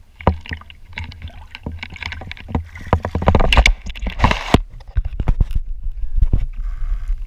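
Shallow water splashing and sloshing against an action camera held at the surface as a person wades. A quick, uneven string of splashes and knocks, busiest about three to four and a half seconds in, runs over a low rumble.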